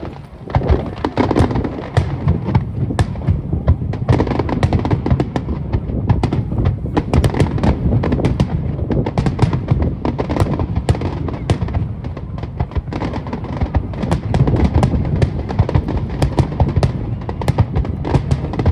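Fireworks display in a dense barrage: many shells bursting in quick succession, sharp cracks several a second over a continuous low rumble of booms.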